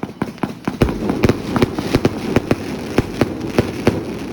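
Fireworks going off: a rapid, irregular run of sharp bangs, several a second, over a continuous din, growing louder about a second in.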